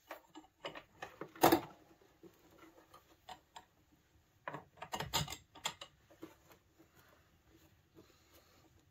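Scattered metallic clicks and clinks of bolts and clamp hardware being fitted onto a steel ATV rack tube by hand, the loudest about a second and a half in and a short cluster around five seconds in.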